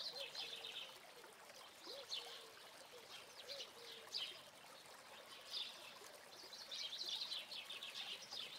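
Faint birds chirping in short, repeated calls.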